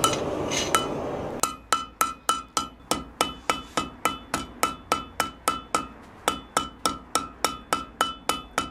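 Blacksmith's hand hammer striking a red-hot arrowhead bar on the horn of the anvil in a quick, even rhythm of about four blows a second, each blow leaving a short ringing note, with a brief break about six seconds in. The blows are refining the neck between the arrowhead and its rolled socket. Before the hammering starts there is about a second and a half of steady noise.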